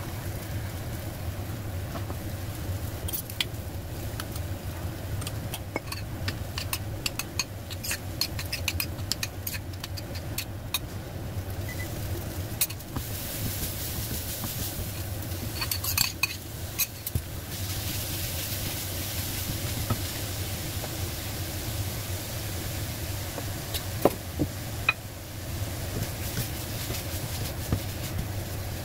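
Onions and then minced pork sizzling in a stainless wok while a silicone spatula stirs them, with scattered clinks and taps of utensils against the pan and bowl. The sizzle grows louder about halfway through, when the pork goes in, over a steady low hum.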